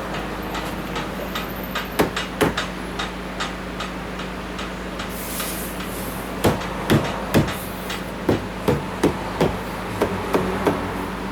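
Sharp knocks on a car door trim panel, most likely struck to seat its clips as it goes back on: two about two seconds in, then a run of about ten from six and a half seconds on.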